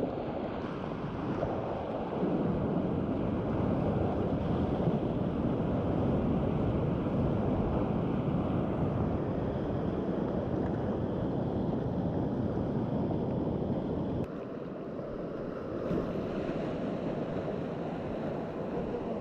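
River rapids rushing close around a whitewater kayak, a steady rush of moving water. It becomes quieter about fourteen seconds in.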